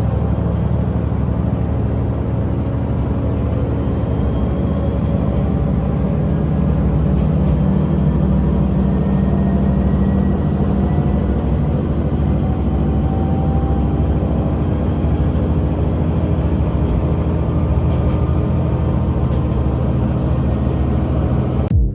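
Diesel railcar running along the line: a steady low engine and rail rumble with faint whines that glide slowly in pitch.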